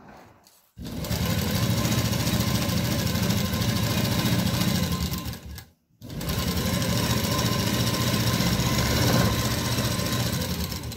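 Seiko Export sewing machine stitching a seam at speed, a fast steady needle chatter. It runs for about five seconds, stops briefly about six seconds in, then starts again.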